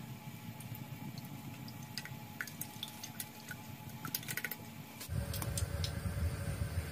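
Cooking oil poured from a plastic bottle into a steel pot, with small splashing and dripping ticks. About five seconds in, a louder steady low rumble starts.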